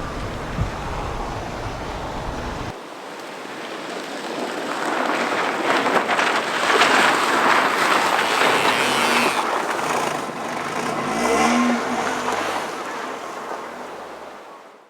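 Suzuki Swift rally car passing on a snow stage. The engine note and the rush of tyres throwing snow swell to a peak around the middle, with the revs rising and falling, then fade away. Wind rumbles on the microphone at the start.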